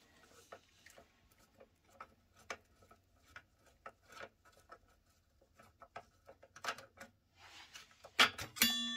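Light metal clicks and scrapes of a multi-key tool working the two screws that hold an electric scooter's brake caliper. Near the end comes a sharp metal knock, then a ringing metallic tone that hangs on.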